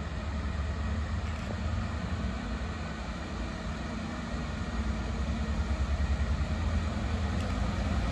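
Approaching rail wash train's diesel engines running as a steady low rumble. The throb grows stronger about five seconds in.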